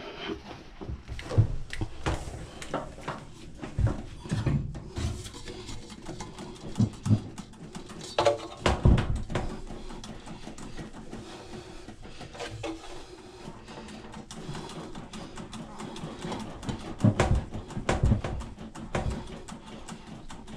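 Irregular knocks, clunks and rustling of hands working around a front-load washer's cabinet, with a few louder thumps about 4 s, 9 s and 17 to 18 s in.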